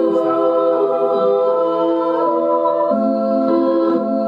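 A sampled girls' choir holding sustained chords, played back through studio speakers, shifting to new chords about two and three seconds in and breaking off at the end.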